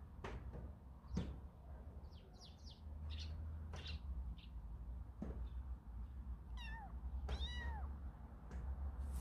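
Young kitten mewing: two clear meows that rise briefly and then fall in pitch, about two-thirds of the way in. It is a kitten left alone, calling for its missing littermates.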